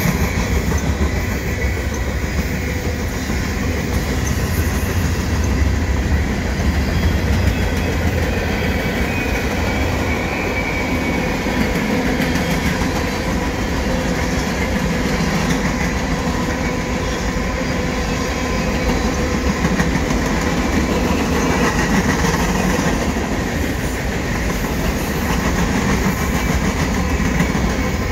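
Freight cars of a mixed freight train (gondolas, covered hoppers and boxcars) rolling steadily past at speed, their steel wheels running on the rails. A deep rumble carries through, and a thin steady ringing tone sits over it.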